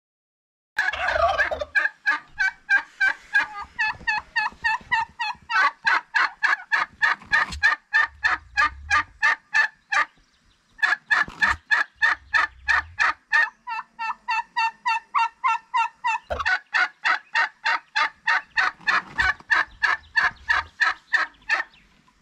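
Domestic turkeys calling in a long, even run of short repeated notes, about five a second. The calls start about a second in and break off briefly about ten seconds in.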